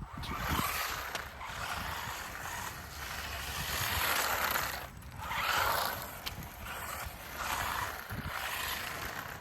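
WLtoys 144001 1/14-scale RC car driving and cornering, its motor and tyres scrubbing on the ground in several surges that rise and fall.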